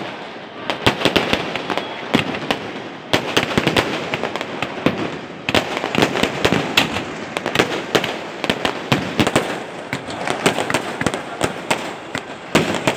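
Fireworks going off: a dense, irregular run of bangs and crackles, many overlapping, with hardly a pause.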